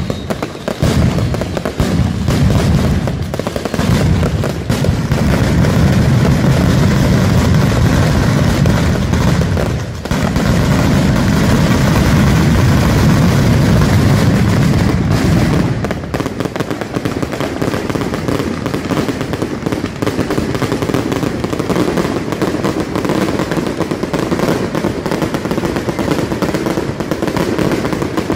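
A nocturnal mascletà: firecrackers and fireworks going off in a dense, unbroken barrage of bangs. The deep bass drops away about sixteen seconds in, leaving a lighter, rapid crackle.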